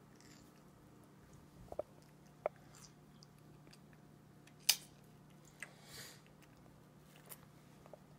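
A toddler chewing juicy watermelon and grapes, faint wet chewing and mouth sounds, with a few short sharp clicks, the loudest about halfway through, as the small fork knocks the glass dish.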